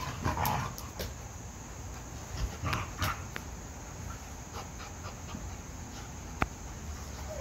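Two dogs play-fighting, mouthing at each other: short bursts of play growling near the start and about three seconds in, with a few light clicks and one sharp click near the end.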